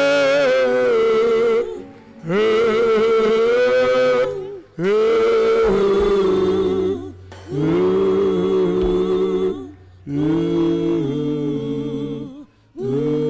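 A man singing into a microphone in long, drawn-out phrases with a wavering vibrato, about five phrases with short breaks between them.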